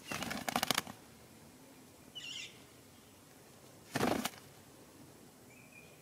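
Red-breasted parakeets' wings flapping in two fluttering bursts, one at the start lasting under a second and a shorter one about four seconds in, as birds fly to the nest bank. A short high call comes about two seconds in and another brief call near the end.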